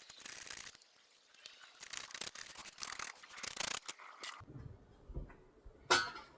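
Short, irregular scraping strokes as old soft window putty is cleaned out of a window opening by hand, stopping about four seconds in. One sharp knock follows near the end.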